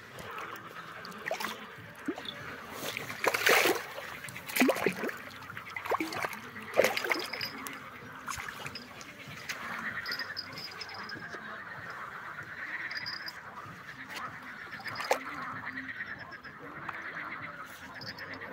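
A hooked carp thrashing at the water's surface by the bank: a cluster of loud splashes in the first half, then lighter sloshing of water.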